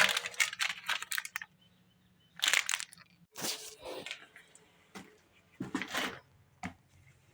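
Packaging being handled during an unboxing: several short bursts of crackling and rustling, like plastic wrap and parts being moved about.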